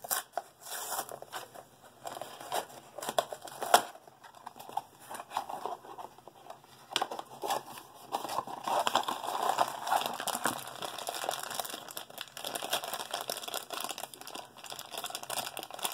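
Crinkling and tearing of Funko Mystery Minis blind-box packaging handled and opened by hand: a foil bag and a small cardboard box. Irregular crackles run throughout and grow denser and louder about seven seconds in.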